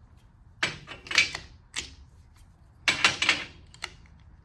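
Steel crimper die segments clicking and clattering as they are worked loose and pulled out one at a time by hand, in four short bursts of metal knocks and scrapes.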